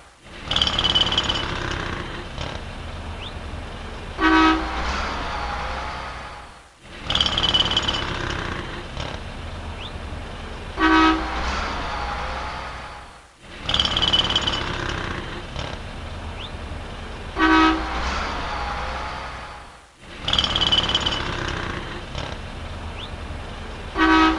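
City street traffic ambience: a steady low rumble of passing vehicles, with a short, loud car horn honk. The same few-second loop repeats about every six and a half seconds, so the honk comes four times.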